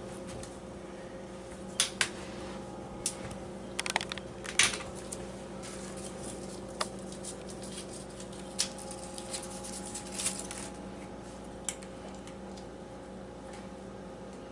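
Scattered sharp clicks and taps, about a dozen, some in quick pairs, over a steady electrical hum in a small room.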